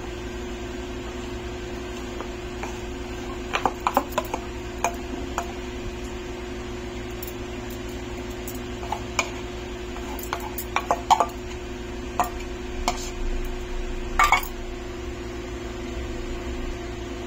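A metal spoon clinking and scraping against a metal bowl and cake tin as thick dhokla batter is poured out and spread, in scattered clusters over a steady low hum.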